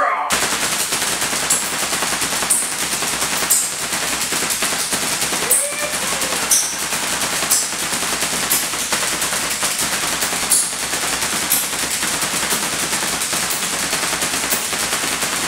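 Handheld Tesla coil guns firing, their spark discharges making a loud, continuous rapid crackling buzz like machine-gun fire, with sharper snaps about once a second.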